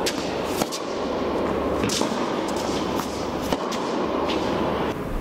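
Tennis ball being struck and bouncing during a baseline rally on an indoor court: about four sharp cracks roughly a second apart, each ringing briefly in the hall, over a steady noise.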